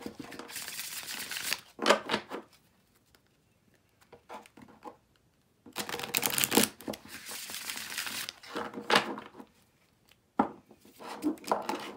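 A deck of tarot cards shuffled by hand: two spells of riffling and rustling cards a few seconds apart, with a few sharp taps of the cards.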